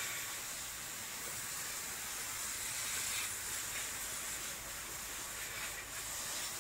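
Steady hiss of water spraying from a pump-fed hose, with a few faint swells in the spray.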